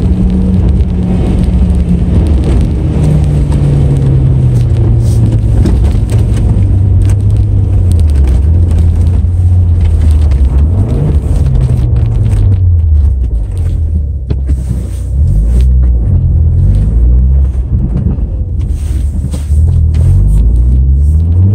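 Car engine heard from inside the cabin. Its revs sink slowly over the first several seconds, then rise and fall again and again, and climb once more near the end.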